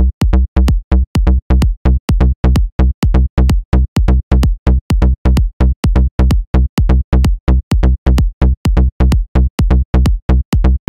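Synthesized plucky bass from Xfer Serum: a square-wave and a sawtooth oscillator through a low-pass filter that an envelope sweeps shut. It plays an even run of short notes, about four a second, each starting bright and quickly dulling.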